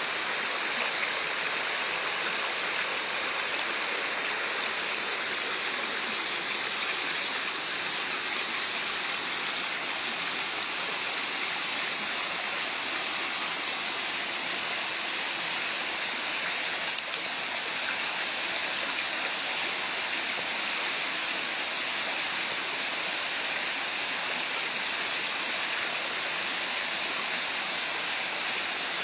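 Running water in a stream, a steady, even rush with no change. A single brief click comes a little over halfway through.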